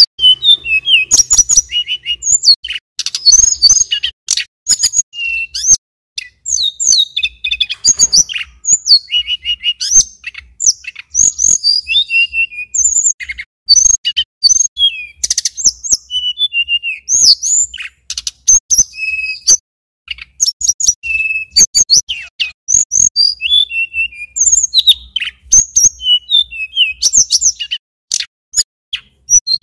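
Male Tledekan Gunung (sulingan gunung) singing a long, fast run of short whistled notes that sweep up and down, with only brief pauses.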